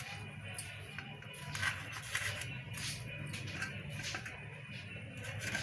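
Small kitchen knife cutting soft bael fruit pulp against a steel plate, giving faint scrapes and light taps over a low steady hum.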